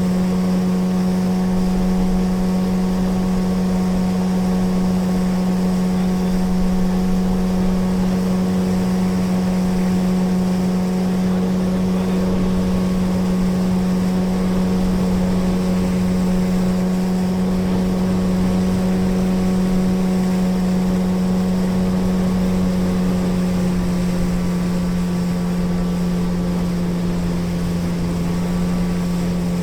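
Motorboat engine running at a steady cruising speed, a constant hum over the rush of water and wind. The engine note drops slightly about three-quarters of the way through.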